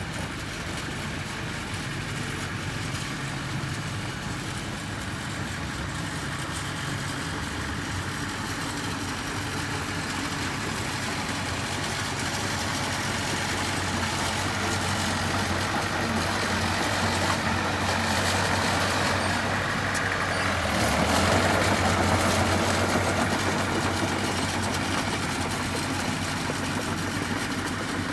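Heavy construction machine's engine running steadily, gradually growing louder, with a louder, rougher spell about three-quarters through as it works harder.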